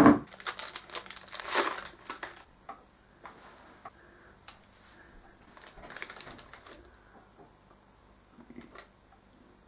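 Crinkling of a Cadbury Flake's plastic wrapper being handled and opened, with small crunches and crackles as the crumbly chocolate is broken and eaten. The rustling is loudest in the first couple of seconds, then thins to faint scattered clicks.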